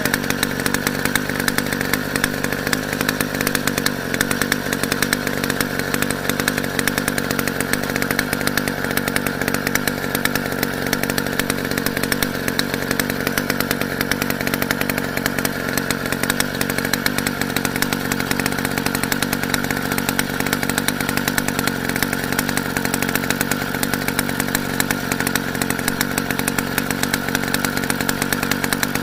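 Small two-stroke motorized-bicycle engine running at a steady pitch, with no revving.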